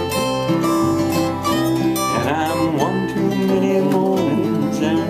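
Two acoustic guitars strumming and picking together through an instrumental passage of a folk song.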